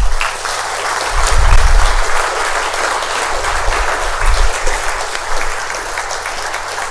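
Audience applauding, a dense steady clapping that begins at once and eases slightly near the end, with a few low thumps underneath.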